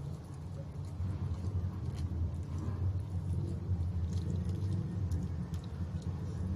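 A man chewing and picking at crispy fried chicken, with faint crunches and clicks, over a steady low rumble that grows louder about a second in.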